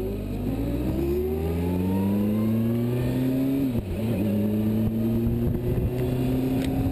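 Police Kawasaki motorcycle's engine accelerating, its pitch rising for about four seconds, dipping briefly at a gear change, then running steady at cruising speed, with wind rushing over the handlebar-mounted microphone.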